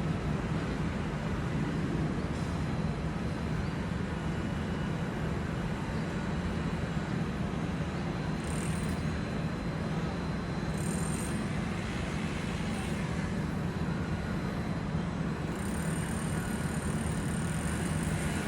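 Steady low rumble of a jet airliner's engines passing high overhead.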